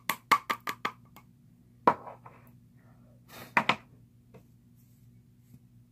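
A powder puff tapping against the plastic tub of Coty Airspun loose powder in a quick run of sharp taps, about five a second, that stops about a second in. A single louder tap follows near two seconds in, then a short cluster of knocks around three and a half seconds.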